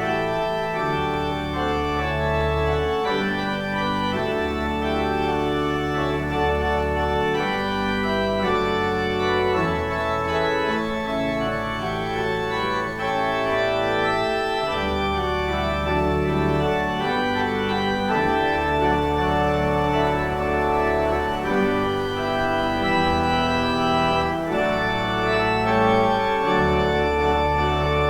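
Organ playing a closing postlude: full, sustained chords over a low bass line that shifts every second or two.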